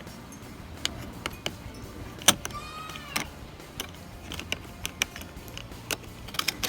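Scattered sharp clicks and snaps of plastic door trim and hand tools being worked on a car door panel, the loudest snap about two seconds in followed by a brief squeak, with a cluster of quick clicks near the end, over a steady low hum.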